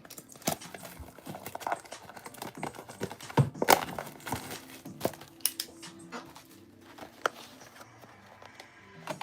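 Packaging of a sealed trading-card box being crinkled and torn open, with irregular rustling and sharp snaps of cardboard and wrapping; the loudest tearing comes about three and a half seconds in, with quieter handling after.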